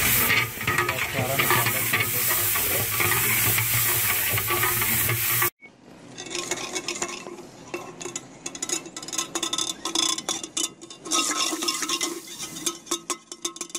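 Masala sizzling and bubbling in a large degh while a long-handled ladle stirs it and scrapes against the pot. The loud sizzle cuts off suddenly about halfway through, leaving quieter, irregular scraping and clicking of the ladle against the metal.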